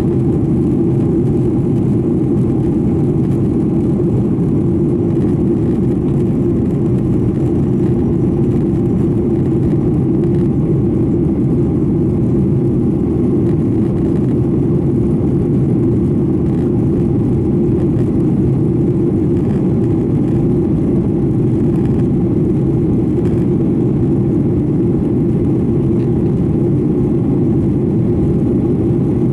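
Steady cabin drone of a Boeing 737-900ER: its CFM56-7B jet engines and the airflow around the fuselage, heard from a passenger seat, a deep even rumble with a faint steady hum above it and no change in pitch or loudness.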